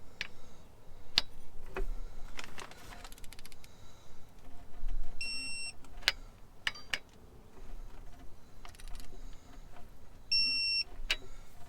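Digital torque wrench beeping twice, each a steady high beep about half a second long, signalling that the set 20 ft-lb torque has been reached on an engine bolt. Sharp metallic clicks and taps from the wrench on the bolts come in between.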